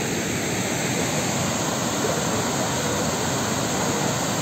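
Muddy floodwater pouring over a dam's overflow spillway and churning at its foot: a steady rush of water from a dam overflowing in flood.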